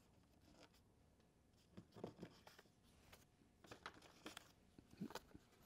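Near silence with a few faint rustles and small ticks of paper index cards being handled.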